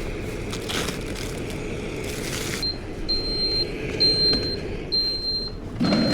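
A steady low hum, then from a little under halfway an electronic beeper sounding a series of short, high, even-pitched beeps about once a second.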